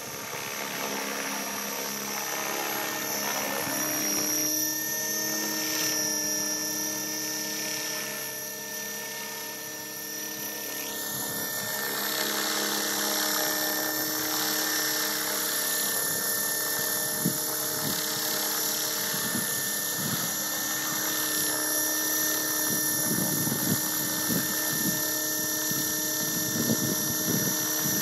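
Align T-Rex 600 radio-controlled helicopter in flight: a steady, high motor and rotor whine that swells and fades as it moves about. It grows louder from about a third of the way in as it comes back lower and closer.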